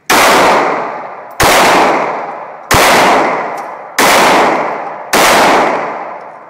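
Five pistol shots at a steady pace of about one every 1.3 seconds, each a sharp crack followed by a long echoing decay off the walls of the indoor range.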